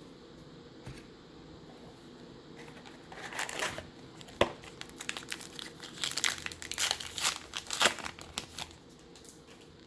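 A baseball card pack's wrapper crinkling and tearing as it is opened, in a run of crackly rustles that starts about three seconds in, with one sharp click partway through.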